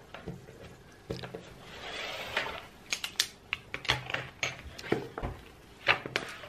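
Irregular sharp clicks and taps, a dozen or so, with a brief soft rustle about two seconds in; the loudest click comes near the end.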